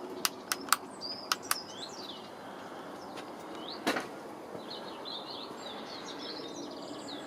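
Small birds singing and chirping, with a denser warbling run in the second half. A quick series of sharp clicks comes in the first second and a half, and a single louder knock about four seconds in.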